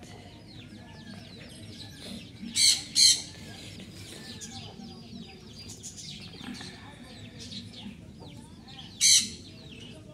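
Birds chirping and calling steadily in the background, many short falling chirps. Three short loud bursts of noise cut in, two close together about two and a half seconds in and one about nine seconds in.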